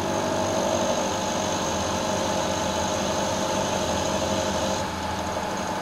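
Milling machine spindle running, its coated solid carbide end mill taking a light 1 mm cut across a free-machining steel cylinder blank: a steady hum with a high whine that stops about five seconds in. The cutter is cutting easily, "eating that like butter".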